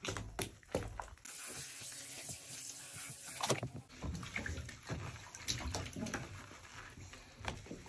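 Baby bathwater splashing, with wet rubbing as a hand lathers shampoo into a baby's hair. A steady hiss of running water starts about a second in.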